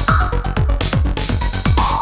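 Electronic dance music with a steady, punchy kick drum, about two beats a second, under synth notes.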